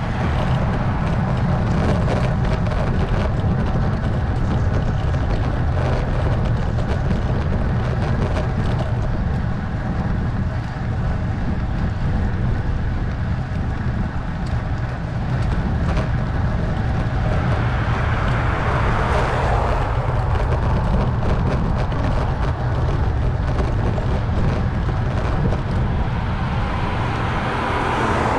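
Steady wind noise on the microphone of a cyclist's camera while riding, with a motor vehicle passing by about two-thirds of the way through and another coming up near the end.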